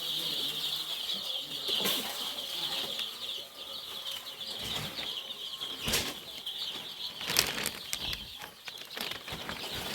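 A brood of week-old layer chicks cheeping together in a dense, continuous high chorus, with several bursts of wing flapping and scuffling, the loudest about six and seven and a half seconds in, as the frightened chicks scatter.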